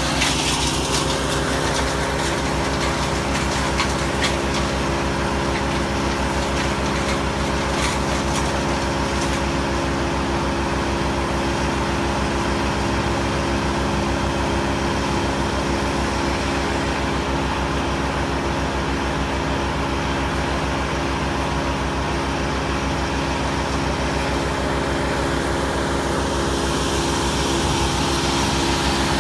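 Wood chipper's engine running steadily, with crackling and snapping of branches being fed through and chipped during the first several seconds.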